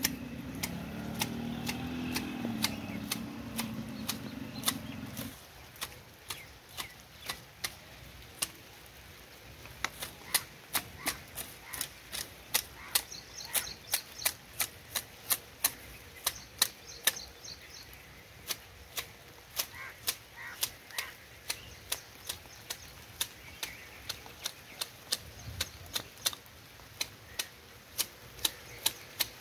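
Manual hedge shears snipping a ficus topiary, the blades closing with sharp clicks about one to two times a second as they cut through leaves and twigs. A low drone runs underneath for the first five seconds and then stops.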